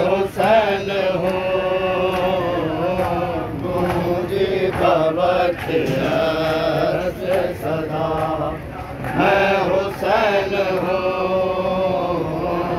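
Male voices chanting a noha, a mournful Urdu lament for Imam Hussain, sung in a slow, drawn-out melodic line without instruments.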